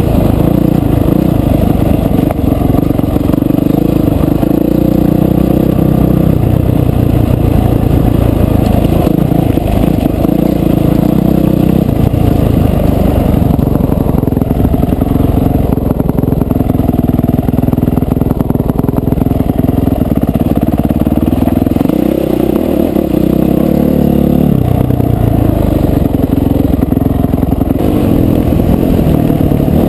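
Dirt bike engine running under way, its pitch rising and falling as the throttle opens and closes.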